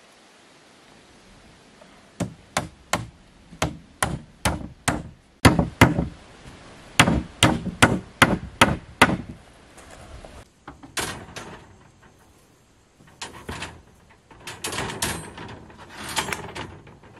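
Hammer blows on a wooden board laid over timber battens, nailing it down: a run of sharp strikes, about two a second, for several seconds. After that come softer, irregular knocks, and near the end steel reinforcing mesh is rattled into place.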